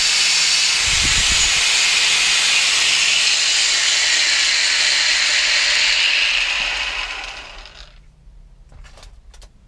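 Angle grinder grinding a stainless steel pipe, a loud steady hissing grind. About six and a half seconds in it stops and dies away within about a second and a half, and a few light clicks follow near the end.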